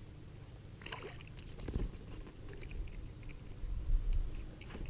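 Light water splashing and scattered knocks as a smallmouth bass is reeled to the surface and landed beside a kayak, with a louder low rumble of handling about four seconds in.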